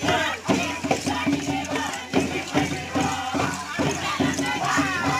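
Kundu hand drums beaten in a steady pulse, with a group of voices chanting over the beat.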